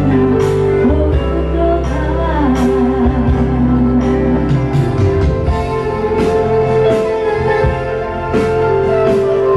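A woman singing into a microphone over a Yamaha electronic keyboard playing sustained chords with a steady drum beat.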